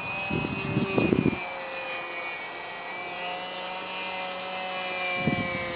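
GWS T6 Texan RC plane's 450-class brushless motor and 10x6 propeller whining in flight, a steady hum of several tones that drifts slightly in pitch. Gusts of wind rumble on the microphone about half a second in and again near the end.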